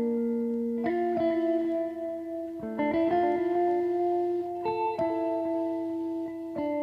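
Background music: a slow melody of plucked notes that ring on, a new note or chord about every one to two seconds.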